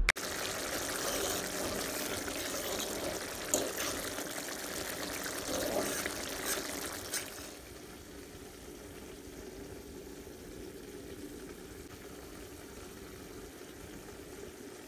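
Steady trickling, pouring water noise with a few light knocks, dropping to a fainter steady hiss about halfway through.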